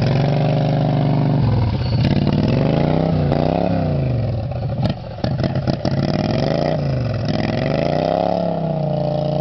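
Racing lawnmower's small engine running, its pitch dropping and climbing again several times as it is throttled down and up. A few sharp clicks come around five to six seconds in, and near the end it settles into a steady run.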